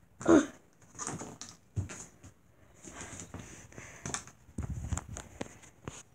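Phone handling noise: scattered knocks, bumps and rubbing as the phone is moved around a tiled bathroom, with a short vocal sound just after the start.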